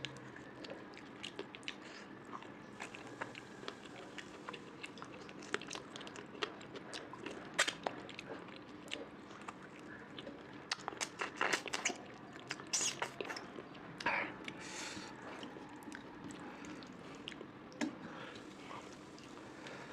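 A person chewing and biting food close to the microphone, with frequent wet smacks and clicks and occasional crunches; the eating gets louder and busier about halfway through.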